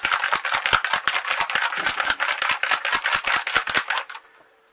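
Rapid rattling clicks of a bottle of airbrush paint being shaken to mix it, stopping abruptly about four seconds in.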